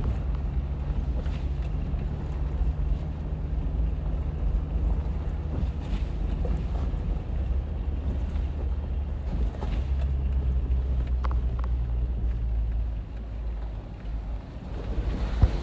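A motor vehicle's engine running with a steady low drone and some rumble, easing a little about thirteen seconds in.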